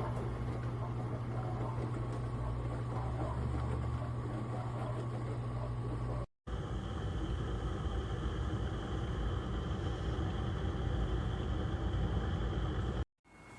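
HAVA 2025 countertop dishwasher running: a steady motor hum with a rush of noise over it. The sound cuts out abruptly twice, and a faint high whine is added in the second stretch.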